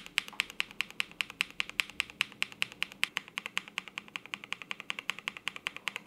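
Fast, even typing on a KBD67 Lite mechanical keyboard fitted with black linear switches: a steady stream of sharp keystroke clacks, about eight to ten a second.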